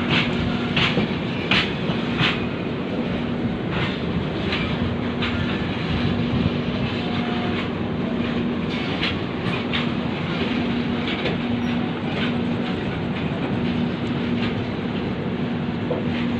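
Express passenger train running, a steady rumble with the clickety-clack of wheels over rail joints. A steady low hum keeps cutting in and out.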